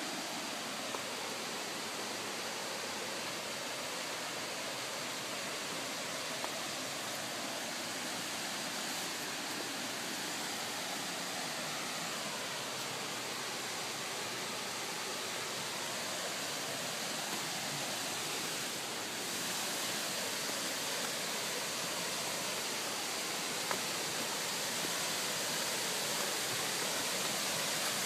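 A waterfall's steady rushing water, heard through the forest and getting slightly louder about two-thirds of the way through.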